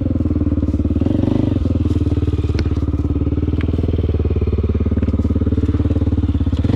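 Motorcycle engine running steadily at low speed while riding, with a few light clicks and knocks over it.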